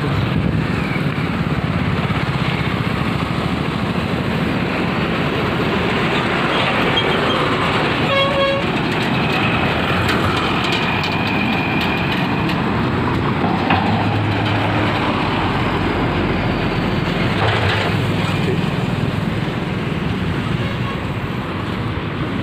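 Road traffic on a bridge: trucks and other vehicles passing in a steady wash of noise, with a vehicle horn honking briefly about eight seconds in.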